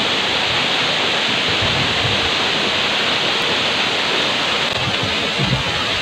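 Steady rushing of a small waterfall pouring over rocks into a pool.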